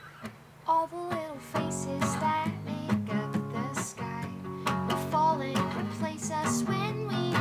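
Two acoustic guitars playing together, quiet at first, with a voice starting to sing about a second in.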